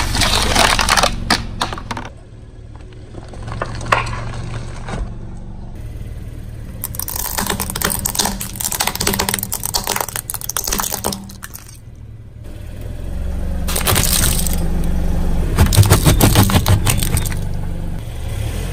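Car tyre rolling over and crushing crunchy items: dense crackling and snapping in three bouts, near the start, in the middle and near the end, over the low rumble of the car.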